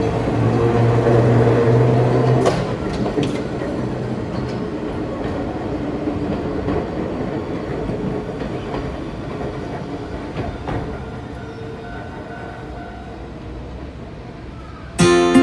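Enoden (Enoshima Electric Railway) train passing on street-level track: a low hum with a few clicks of wheels over rail joints in the first seconds, then the sound slowly fades as the train moves away. Acoustic guitar music comes in at the very end.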